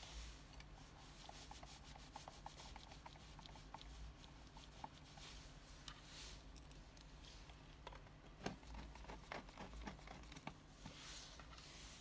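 Faint clicking and rubbing from gloved fingers pressing the stainless-steel push buttons of a Videx VX800N access keypad, with one louder knock about two-thirds of the way in.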